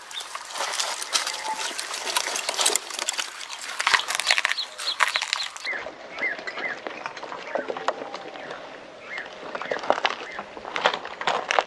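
Camel chewing cactus: a dense, irregular run of crunching and clicking bites.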